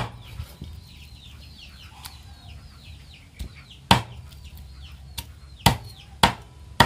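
Cleaver chopping through cooked duck on a round wooden chopping block: one chop at the start, then a run of four sharp chops with a few lighter knocks in the second half. Chickens peep and cluck in the background through the first half.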